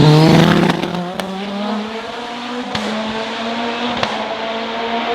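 Hillclimb racing car engine at full throttle as it passes close by, loudest at the start, then pulling away with its note slowly rising as it accelerates up the hill. A few sharp cracks are heard along the way.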